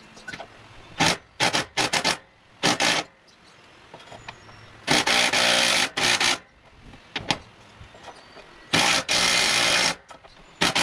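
Cordless impact driver hammering on a nut in repeated bursts: several short bursts, then a longer run about five seconds in and another about nine seconds in. He is trying to break loose a stubborn nut on the mower deck's belt stud.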